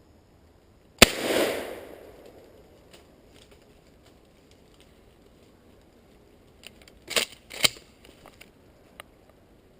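A single 12-gauge shotgun shot about a second in, its report echoing and fading over about a second. Some six seconds later come two sharp knocks about half a second apart, with a few fainter clicks.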